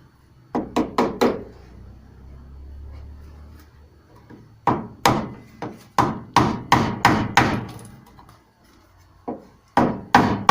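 Repeated hammer blows in three groups: four quick strikes, then a run of about ten, then a few more near the end.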